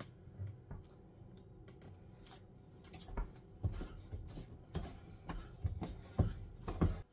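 A wooden spoon stirring a stiff oat flapjack mixture in a stainless steel mixing bowl, scraping and knocking against the metal. The knocks come in an uneven run of clicks, starting about three seconds in.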